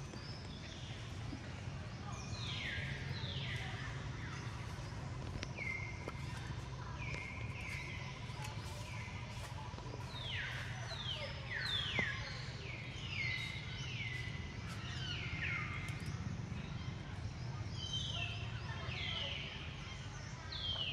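Repeated high-pitched animal calls, each a quick falling note, starting about two seconds in and coming again and again, sometimes overlapping, over a steady low rumble.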